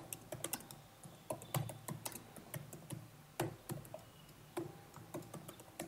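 Computer keyboard typing: faint, irregular key clicks in quick runs with short pauses.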